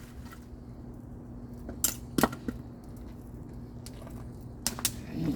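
Axe striking firewood: several sharp knocks in two clusters, a few about two seconds in and a pair near the end.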